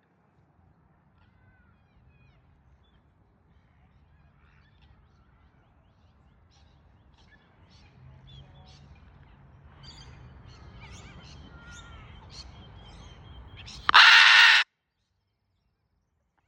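Faint short chirps and calls build up over a low rumble. Near the end comes one very loud, harsh macaw scream, under a second long, that cuts off suddenly.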